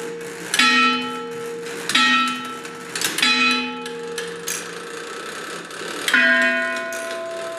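Mechanical clock striking on bells: three ringing strokes on one bell, a little over a second apart, then after a pause a stroke on a higher-pitched bell near the end, with faint clicks of the works between.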